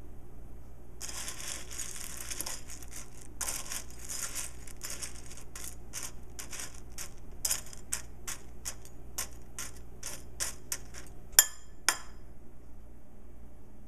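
A metal spoon stirring and scooping dry cereal in a bowl: a run of short crunchy rattles, dense at first and then about two a second. Near the end come two sharp clinks of the spoon against the bowl.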